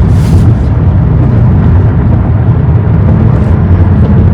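Car driving at road speed: a steady low rumble of tyre, road and engine noise, with a brief hiss near the start.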